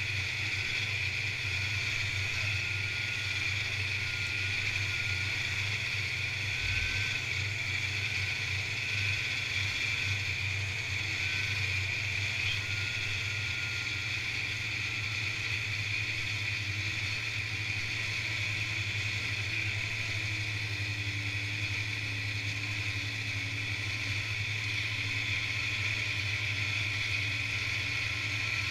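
1986 Polaris Indy Trail 488 fan-cooled two-stroke snowmobile engine running at a steady speed while the sled rides along a groomed trail.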